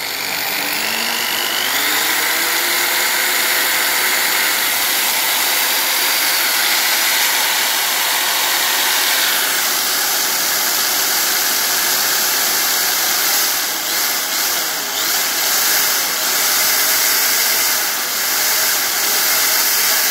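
Defort DID-501-B 500 W impact drill running free with no load, its motor whining steadily. The speed climbs over the first two seconds, shifts about halfway through, and wavers near the end as the speed dial is turned while it runs.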